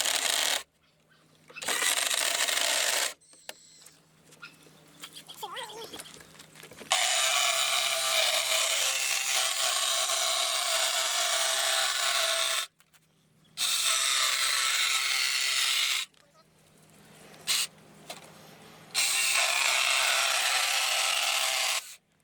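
A power tool cutting sheet metal, run in five bursts that start and stop abruptly. The longest lasts about six seconds, from about seven seconds in.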